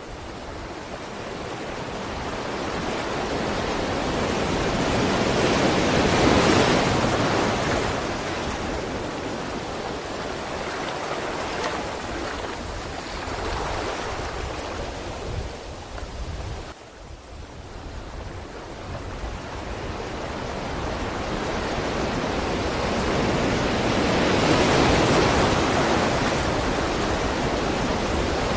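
Ocean surf washing on a shore: a continuous rush of water that swells to a peak about six seconds in, ebbs, drops away briefly around seventeen seconds, then builds to a second peak near the end.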